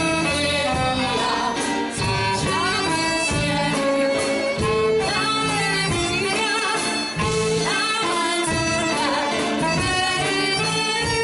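Live band music with a steady beat, with singing over it.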